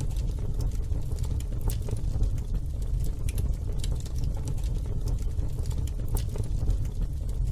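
Fire burning in a Weber barbecue grill, crackling with irregular sharp pops and snaps over a steady low rumble.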